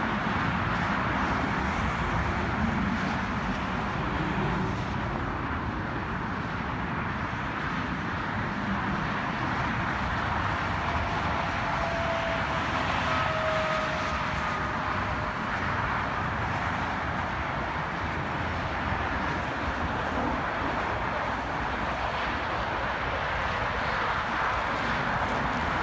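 Steady, distant roar of Blue Angels F/A-18 Hornet jet engines as the formation flies its climb with smoke on, with a faint whine rising slightly near the middle.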